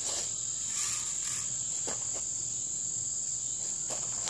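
Insects chirring in a steady high-pitched drone, with a few faint clicks from someone handling a BB gun.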